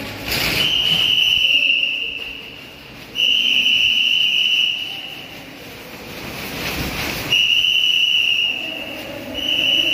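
A whistle blown in four long, steady, high-pitched blasts. A rushing noise swells up between some of them.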